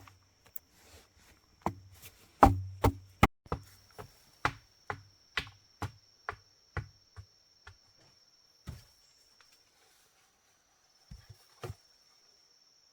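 Repeated chopping: sharp blade strikes about two to three a second that grow lighter and stop about eight seconds in, with a couple of single knocks near the end. A steady high insect drone runs behind.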